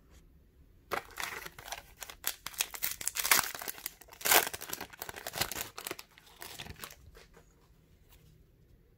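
Foil wrapper of a hockey card pack crinkling and tearing as it is ripped open by hand. A run of crackling rustles starts about a second in, is loudest around three and four seconds in, and dies down about seven seconds in.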